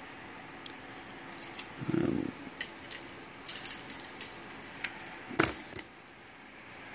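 Handling noise on a workbench: scattered small clicks and metallic clinks as a bare amplifier circuit board is handled and set down, with one louder knock about five and a half seconds in.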